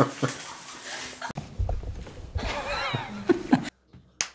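Soft laughter and chuckling from people on a film set, with a few faint words and a brief low rumble. The sound then cuts off suddenly, and one short sharp noise comes near the end.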